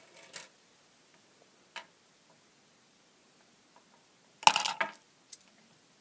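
A few scattered clicks in a quiet small room, then a short loud clatter of several quick knocks about four and a half seconds in.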